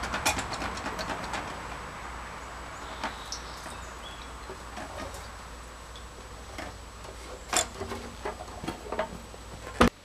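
Gasoline draining from a motorcycle fuel tank into a plastic bucket, the splashing stream dwindling over the first couple of seconds. After that come a few scattered clicks and knocks as the tank is handled.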